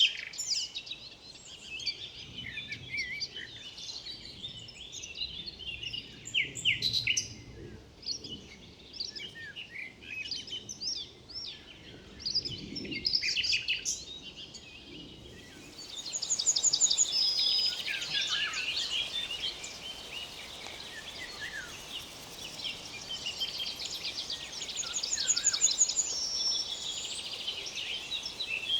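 Several songbirds calling and singing over one another, chirps and short whistles with quick high trills. About halfway through, a steady rushing hiss of flowing river water comes up beneath the birdsong.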